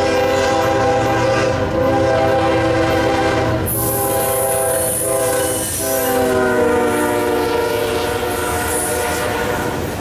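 Air horn of a Norfolk Southern GE ES40DC diesel locomotive sounding for a grade crossing in long blasts, broken twice, about four and six seconds in. The pitch of the last blast drops slightly as the locomotive passes, over the low rumble of the diesel engines.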